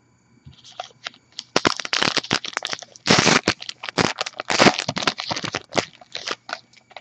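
A 2014 Topps Gypsy Queen baseball card pack's wrapper being torn open and crinkled by hand: a dense run of crackling that starts about half a second in, is loudest in the middle, and thins out near the end.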